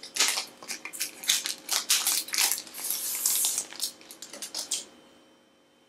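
Crinkling and rustling of thin plastic protective film on a new smartphone as it is handled and turned in the hands, in quick irregular crackles that stop about five seconds in.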